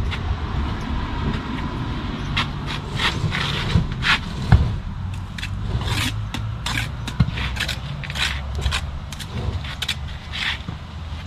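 Brick trowel scraping and tapping mortar on concrete blocks as they are laid: a quick run of short scrapes and knocks, over a steady low rumble.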